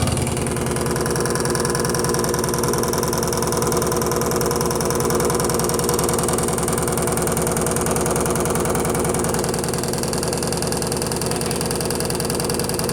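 Electrolux Perfect Wash 16 kg top-loading washing machine in its high-speed spin, a steady loud hum with a fast rattle from the shaking cabinet. The machine is rocking during the spin and will not stop making noise, a sign of an unbalanced or unsteady drum.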